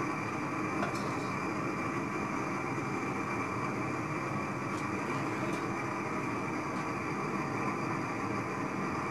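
Gas burner roaring steadily under a plumber's cast iron pot, keeping lead molten for casting. A few faint light clicks are heard over it.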